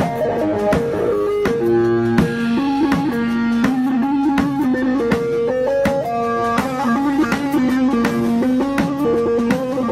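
Background music: a plucked guitar melody over light percussion.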